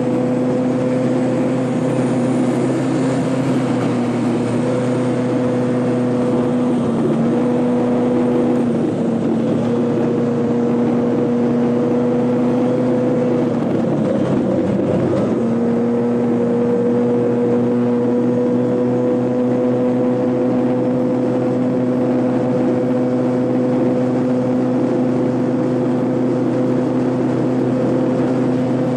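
Piaggio Zip 50 scooter engine running flat out at steady revs on the racetrack, heard close from the onboard camera. The note sags briefly about a quarter of the way in, then drops more deeply halfway through as the scooter eases off for a bend, and climbs back to the same steady pitch.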